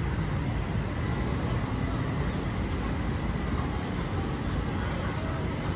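Steady street ambience of a busy night market: traffic running with voices and diners' chatter mixed in.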